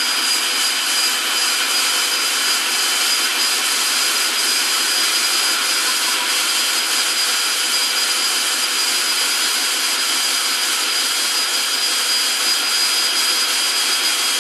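Cordless drill running steadily at constant speed with a high whine, driving the EZ-Set winder to wind tension into a garage door torsion spring.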